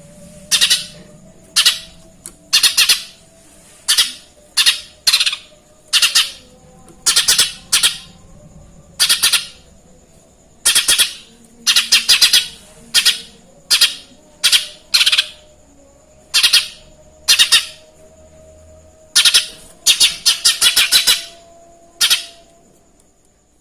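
Cucak ijo mini (leafbird) calling loudly in short, harsh chirps, about one a second and sometimes two in quick succession, copying the chirping of a Eurasian tree sparrow.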